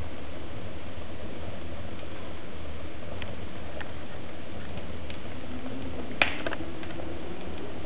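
A fire burning a leather shoe and boot in a stove's firebox: scattered faint crackles over a steady low noise, with one sharper pop about six seconds in followed by a couple of smaller ones.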